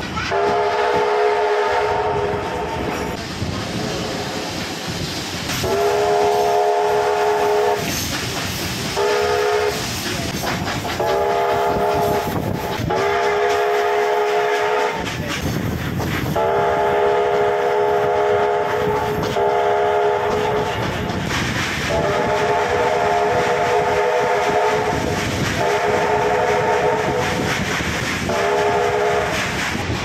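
A steam locomotive's whistle sounds a chord of several notes at once in about ten blasts, some long and some short, heard from a carriage behind it, with the train's wheels clattering on the rails underneath.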